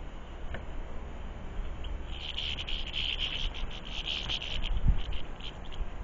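A small songbird's buzzy, trilling call for a couple of seconds in the middle, over a steady low rumble, with a soft thump near the end.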